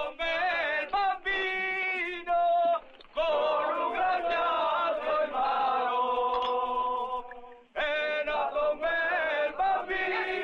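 Men singing a song, with long held notes and short breaks between phrases about three and eight seconds in.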